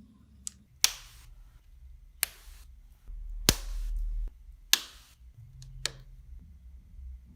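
Plastic Lego Technic pieces clicking and knocking as they are handled and snapped together: six sharp clicks about a second apart, some with a short rattle after.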